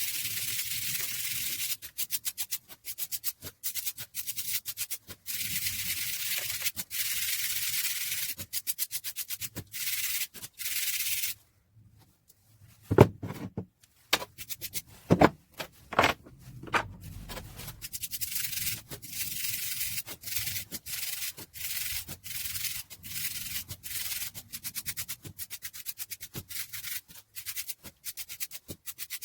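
Rusty metal parts of an old hand drill being sanded by hand in quick back-and-forth strokes. The sanding stops briefly about halfway, a few loud knocks follow, and then the sanding goes on.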